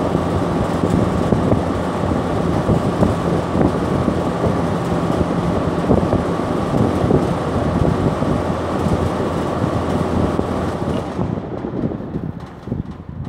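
38-inch, 750-watt chicken-house box exhaust fan running: a steady rush of air with motor hum and a thin steady whine. About eleven seconds in the whine and the hiss drop away and the sound tapers off as the fan winds down.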